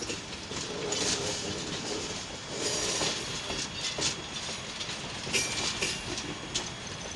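Railcars of a slow-moving train rolling past in reverse, wheels clicking over rail joints, with a brief high wheel squeal a little over five seconds in.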